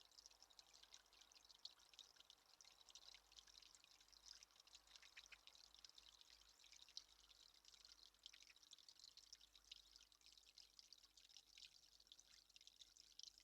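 Near silence, with water faintly trickling and dripping: a dense, uneven patter of tiny high ticks.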